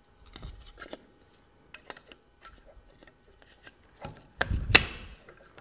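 AR-15 handguard halves being fitted under the compressed delta ring (handguard slip ring): scattered light clicks and rubs, then a louder clatter of clacks about four and a half seconds in.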